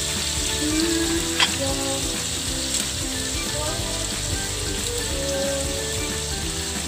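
Pork pieces sizzling steadily in a steel wok in soy sauce and vinegar, with a single sharp pop about one and a half seconds in.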